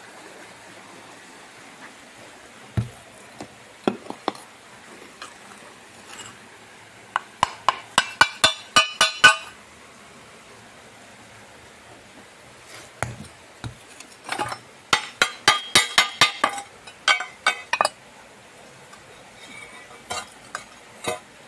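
Freshly cast aluminium pieces clinking and tapping against each other and against metal as they are handled. There are a few scattered ticks, then a quick run of clinks about seven seconds in, and another longer run from about thirteen to eighteen seconds.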